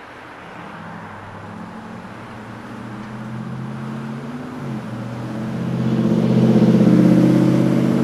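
City street traffic with a motor vehicle's engine running close by. Its hum grows steadily louder, is loudest about two-thirds of the way through, then eases off slightly near the end.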